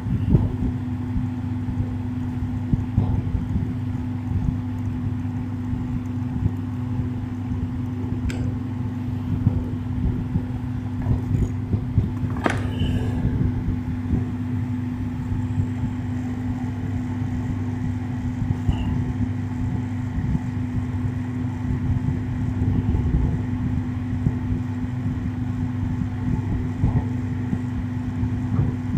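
Electric table fan running steadily: a constant motor hum over a rough low rumble of moving air. There is a short sharp click about twelve seconds in.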